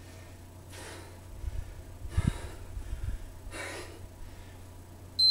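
A woman breathing hard from exertion during kettlebell woodchuck lifts: three forceful exhales, with a low thud about two seconds in. A short electronic beep starts right at the very end.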